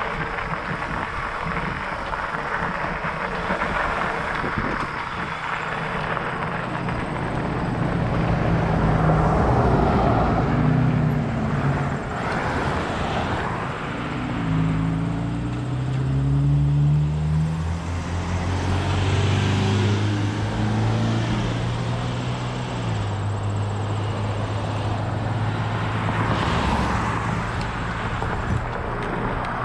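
Fat-bike tyres rolling on a gravel trail with wind noise, then road traffic: several cars pass one after another on a paved road, their engine and tyre noise swelling and fading.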